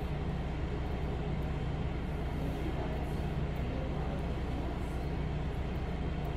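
HydraFacial machine's vacuum pump running with a steady low hum, supplying the suction for the lymphatic handpiece.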